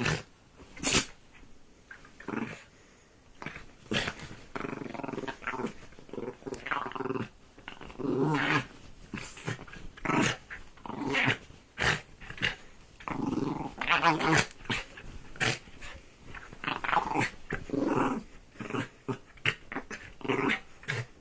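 Dog growling in repeated bursts while it mauls a duvet. Short sharp noises fall between the growls.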